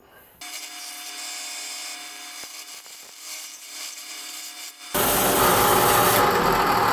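A power tool running steadily and cutting away the plastic of a speaker housing. About five seconds in the cut bites harder and the sound gets much louder and rougher.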